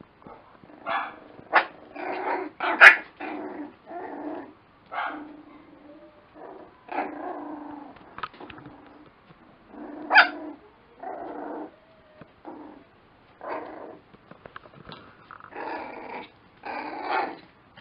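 Two 26-day-old Lakeland Terrier puppies play-fighting, with a run of short, small-voiced growls and yaps. Two sharp yelps, about three and ten seconds in, are the loudest.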